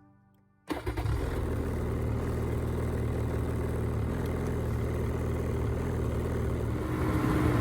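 Snowmobile engine starting up abruptly about a second in and running steadily at idle, picking up slightly near the end.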